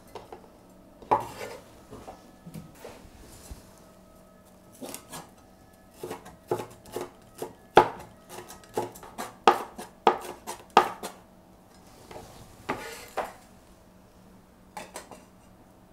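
Chinese cleaver slicing a red bell pepper into strips on a wooden cutting board: the blade knocks on the board at an uneven pace, with a quicker run of strokes in the middle.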